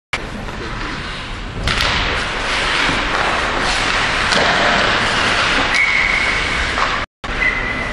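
Ice hockey play: skates scraping on the ice and sticks and puck clicking, with a sharp thud against the boards about two seconds in and a few smaller knocks later.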